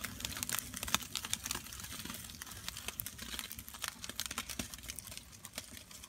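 Wood campfire crackling, with many small irregular clicks and snaps over a faint hiss.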